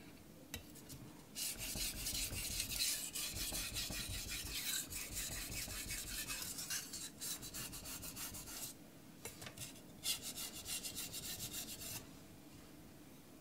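Carbon-steel (aogami) knife blade being stroked back and forth on a soaked King 1000-grit waterstone: a run of quick scraping strokes, a short pause about 9 seconds in, then a second run that stops about 12 seconds in. This is the 1000-grit stage that sets up the edge.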